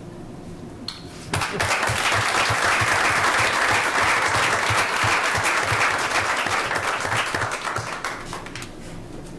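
Audience applause, starting suddenly about a second and a half in and dying away near the end.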